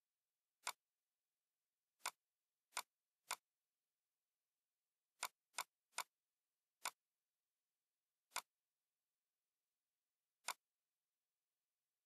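Computer mouse clicking: ten single sharp clicks at uneven intervals, some in quick pairs and triples, against silence.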